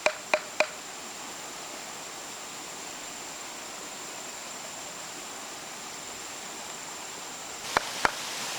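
A few sharp chopping knocks, about three a second, that stop within the first second, then a steady rushing hiss like running water with a thin, steady high whine above it; two more knocks come near the end.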